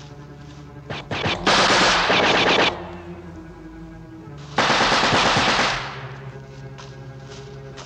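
Two bursts of rapid automatic gunfire, each a little over a second long and about three seconds apart. A few single shots come just before the first burst, over a low held music chord.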